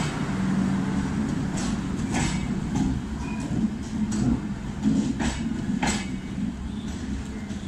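Tejas Express coaches rolling past at low speed: a steady low rumble with a series of sharp wheel clicks on the track. The sound fades as the last coach, the luggage-brake and generator car, goes by.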